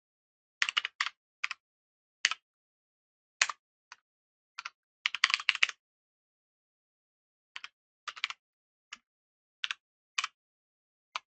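Typing on a computer keyboard in uneven bursts: single keystrokes and short groups of keys with pauses between, and a quick run of keys about five seconds in.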